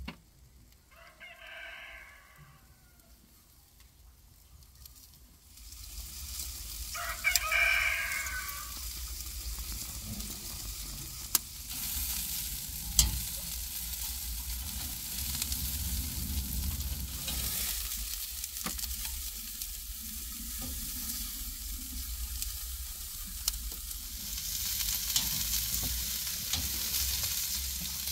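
Rump steak and beer sausages sizzling on a grate over hot charcoal, starting about five seconds in, with a few sharp clicks of metal tongs on the grate. A rooster crows twice in the background, faintly about a second in and louder about seven seconds in.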